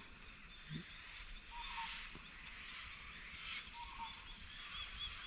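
Faint outdoor chorus of small, rapidly repeated high chirps from wildlife along the river, over a soft background hiss.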